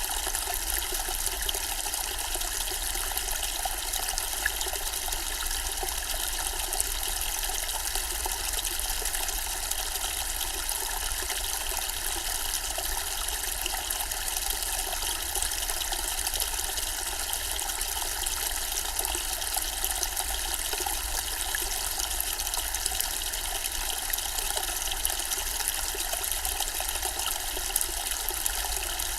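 Zen-style water fountain with water trickling and splashing steadily.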